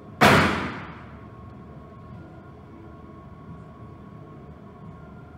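A single handgun shot just after the start: a sharp crack whose echo rings on in the enclosed indoor range and dies away within about a second, followed by a steady low background hum.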